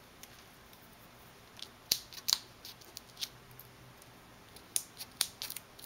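Fingernails picking and peeling the paper backing off Stampin' Up! Dimensionals foam adhesive squares on cardstock: a scatter of small clicks and scratchy ticks, sharpest around two seconds in and again near five seconds in.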